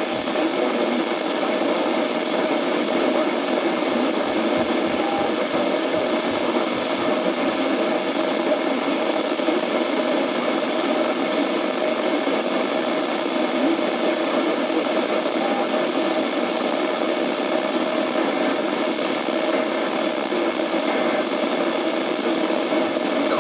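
Steady radio static hiss from a weather radio receiver tuned to the broadcast, with no voice on the channel; it stays even throughout.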